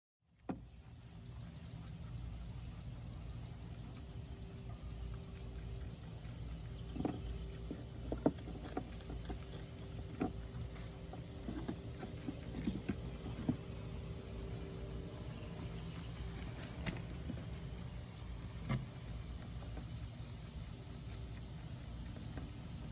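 Rabbits nibbling and crunching lettuce leaves: small irregular crunches and rustles, thickest in the second half, over a steady low background hum.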